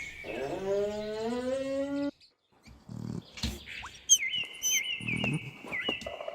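Moose calling: a drawn-out call whose pitch rises, cutting off about two seconds in. It is followed by faint low sounds and, from about four seconds in, repeated bird chirps.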